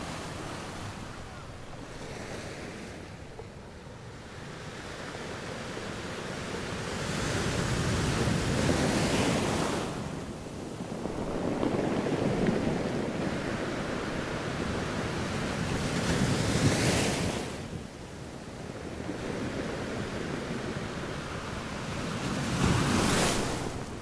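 Small sea waves breaking and washing up a sandy beach, swelling and falling away every few seconds. The louder surges come about a third of the way in, around two-thirds of the way in, and again just before the end, each cutting off fairly sharply as the wash spends itself.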